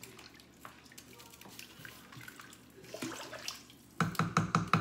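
Soup being stirred with a spoon in a stainless steel pot: faint liquid swishing and small scrapes. Near the end comes a quick run of about six loud knocks.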